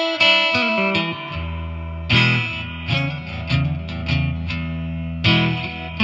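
Electric guitar with an Area 58 single-coil neck pickup played dry through the amp's plain clean channel, no pedals on. It plays a riff of ringing chords over bass notes, with strong strummed hits at the start, about two seconds in and about five seconds in.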